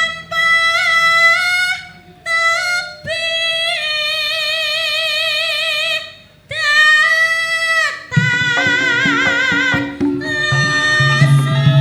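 A woman singing long, high, held and ornamented notes with a wavering vibrato, in phrases separated by short breaths, in the style of a Javanese sinden. About eight seconds in, gamelan instruments join with low notes and strikes under the voice.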